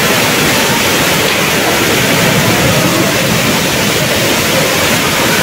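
Heavy rain and floodwater pouring down steps in a cascade, a steady rushing hiss.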